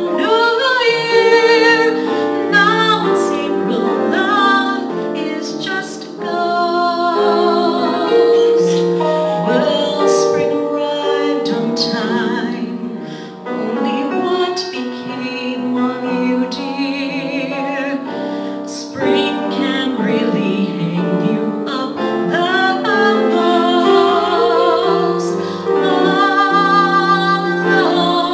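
A woman singing solo with marked vibrato, over sustained instrumental accompaniment.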